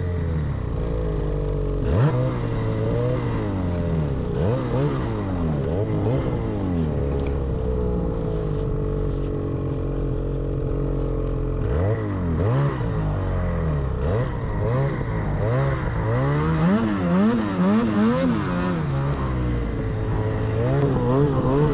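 Snowmobile engine revving up and down over and over as the rider works the throttle through deep powder, with stronger surges in the second half. A single thump about two seconds in.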